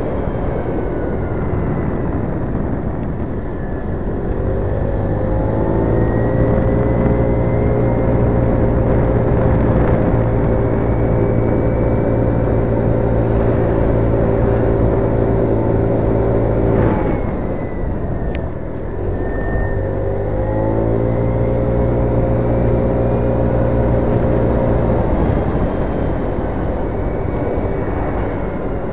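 Scooter engine pulling up in pitch and holding a steady drone at cruising speed, easing off briefly a little past halfway, then climbing and holding again before easing near the end. A steady rush of wind and road noise runs underneath.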